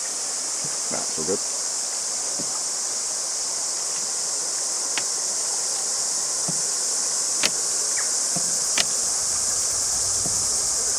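A steady, high-pitched chorus of insects droning without a break from the bush along the riverbank. A couple of sharp knocks come through it late on.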